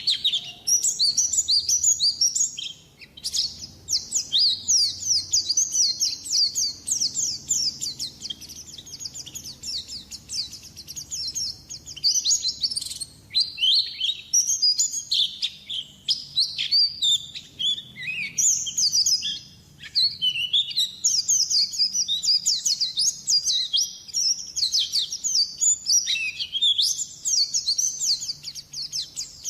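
White-eye (pleci) singing a long, fast twittering song of rapid high notes, broken by a few short pauses.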